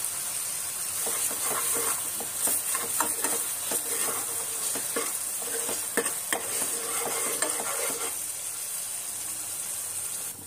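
Tomato paste frying with a sizzle in hot oil and onion-garlic masala in a metal kadhai, stirred with a metal spoon that scrapes and knocks against the pan. The stirring strokes come thick from about a second in to about eight seconds in, then ease off, leaving the sizzle.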